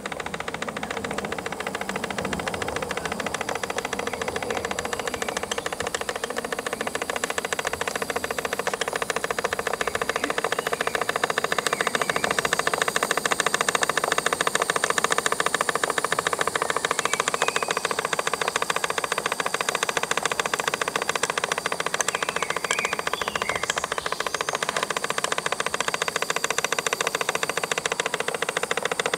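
Small vintage 1930s model steam engine running at speed, giving a rapid, even mechanical clatter that grows a little louder about eleven seconds in.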